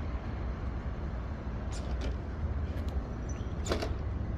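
Steady low rumble of outdoor road-traffic ambience, with a few brief higher squeaks or chirps, one near the middle and one about three-quarters of the way through.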